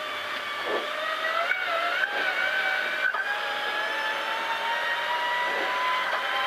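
Mitsubishi Lancer Evolution IX rally car's turbocharged four-cylinder engine heard from inside the cabin, running under load. Its pitch wavers for the first couple of seconds, then climbs slowly and steadily as the car accelerates.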